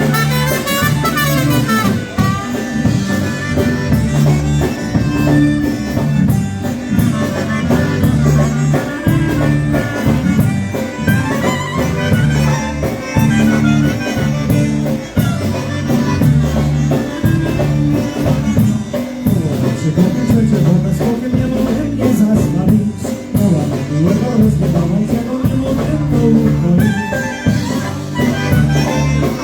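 Live polka-band music: the band playing a tune with a steady bass-and-drum beat under a reedy melody line.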